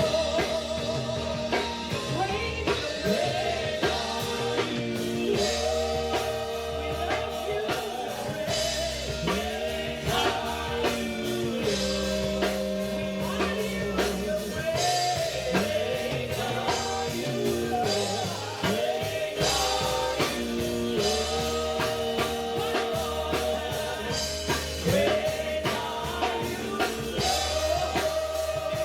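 Live church praise band playing a slow worship song with drum kit and bass, with voices holding long sung notes over it.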